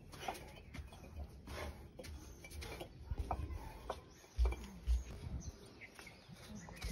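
Chickens clucking faintly, with two dull low thumps about two-thirds of the way through.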